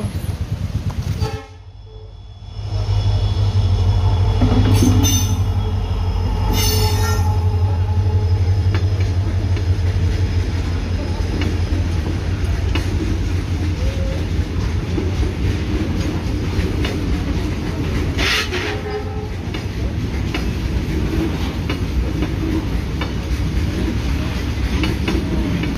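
Freight train rolling past a level crossing at close range: a heavy, steady rumble of wagons and wheels on the rails, starting about three seconds in. A horn sounds a few seconds in.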